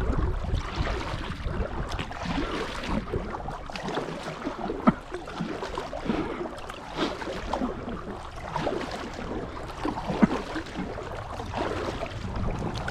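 Kayak paddle blades dipping into the canal water, with splashes and drips at each stroke, a stroke every second or two.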